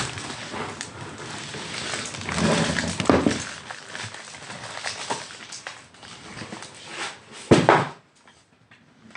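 Packaging rustling and objects clattering as they are knocked over, with louder knocks about three seconds in and again about a second before it quietens.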